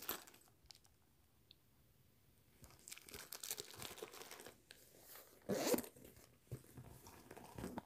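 Faint rustling and crinkling of wipe and tissue packets and a zip pouch being handled, with one brief, louder rasp about five and a half seconds in.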